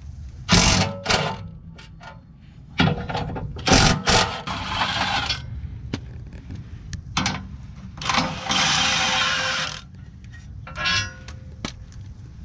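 Cordless impact wrench hammering in several short bursts, with a longer run of nearly two seconds near the end, backing out the bolts that hold a Jeep Wrangler JK's skid plate.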